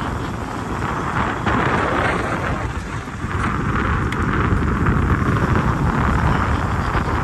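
Steady rumbling, rushing noise of a 4x4 vehicle on the move, with wind on the microphone.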